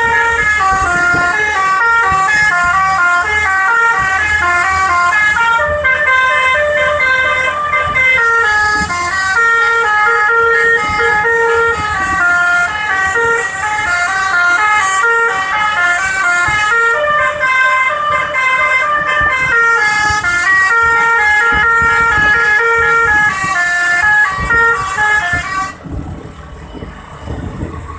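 Indonesian bus 'basuri' telolet horn, a multi-trumpet musical air horn, playing a quick melody of stepping notes. It cuts off near the end, leaving quieter background noise.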